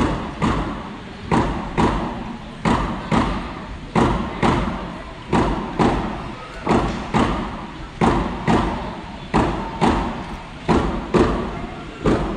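Hand drums beating a steady two-stroke rhythm, a strong beat followed by a softer one about half a second later, the pair repeating roughly every 1.3 seconds. Each beat echoes in the gymnasium.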